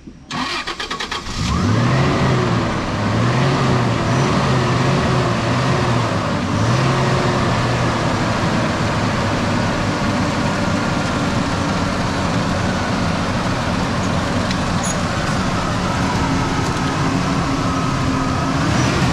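Toyota Land Cruiser engine cranked by the starter, catching about a second and a half in, revved up and down a few times, then running steadily. It is being restarted after a starting fault that the crew thinks lies in the starter motor.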